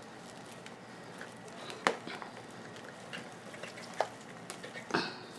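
Hands working a boat lily's soil-packed root ball apart in a plastic basin: potting soil crumbling and rustling. Three sharp clicks come about 2, 4 and 5 seconds in.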